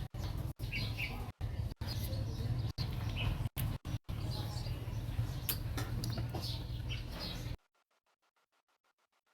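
Faint bird chirps over a steady low hum. The sound drops out briefly several times and cuts off sharply about three-quarters of the way through.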